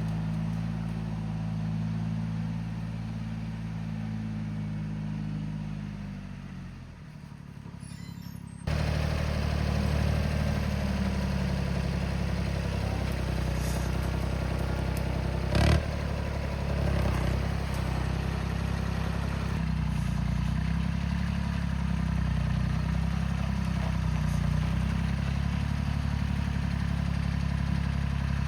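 Tractor engine running steadily. About seven seconds in it slows and drops in pitch, then it runs again, louder, with one sharp clank around the middle.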